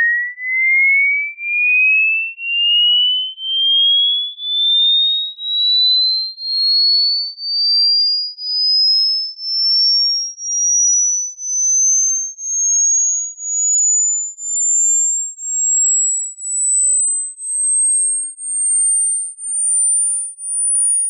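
Hearing-test sine tone: a single pure tone gliding slowly and steadily upward in pitch, from a high whistle to a very high, thin pitch, swelling and dipping in loudness about once a second.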